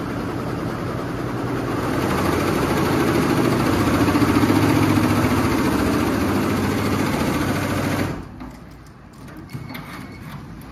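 Multi-head commercial embroidery machine running, its needle heads stitching together in a dense, steady mechanical clatter. About eight seconds in, the sound drops abruptly to a much quieter level with a few light knocks.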